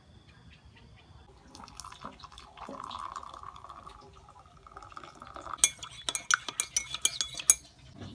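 Water poured into a ceramic mug for black coffee, a steady trickling fill lasting about three seconds, followed by a quick run of sharp clinks against the mug for about two seconds.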